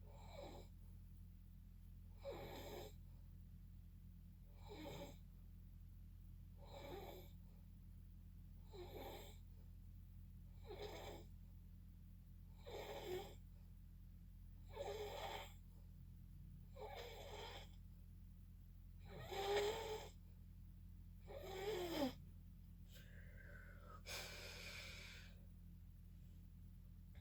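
A person snoring, one breath about every two seconds over a steady low hum. The two loudest snores come about twenty seconds in, each sliding down in pitch. A longer, different breath follows, and then the snoring stops.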